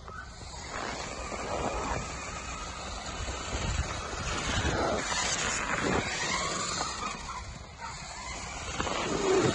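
Small electric motor of a toy truck driving through snow, its whine rising and falling several times over a rough, crunching rumble.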